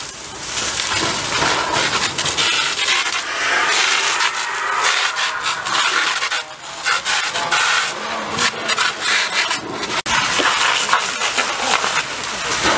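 Fire hose jet spraying water onto a burning wooden shed: a loud, steady hiss of water and steam with irregular crackles. The sound drops out sharply for an instant about ten seconds in.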